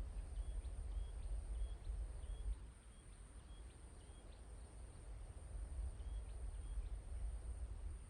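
A forest bird repeating a short, high call note about twice a second, each note with a quick upward flick at its start. The calling pauses about halfway through and resumes briefly. A steady high whine and a low rumble run underneath, the rumble easing about a third of the way in.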